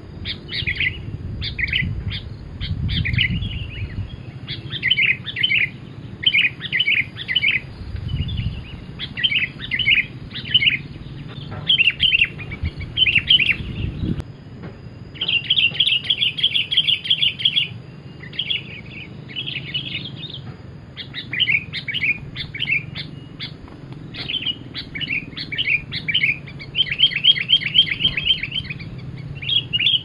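Sooty-headed bulbul calling: repeated short chattering notes throughout, with two fast rattling trills, one about halfway and one near the end.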